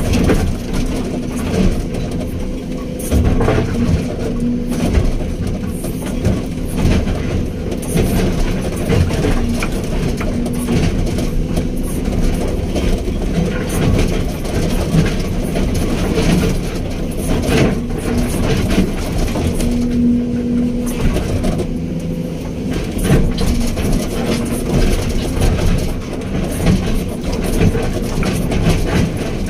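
Hydraulic excavator's diesel engine running steadily under work, with scattered knocks and clanks.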